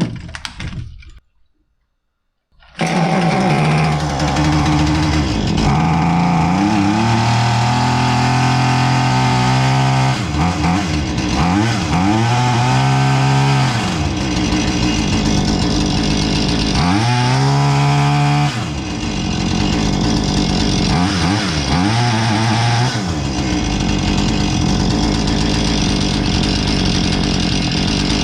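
Husqvarna 440 two-stroke chainsaw engine running, coming in about two and a half seconds in and revved up and let back down several times. It is running again after the flooded crankcase was cleared of fuel.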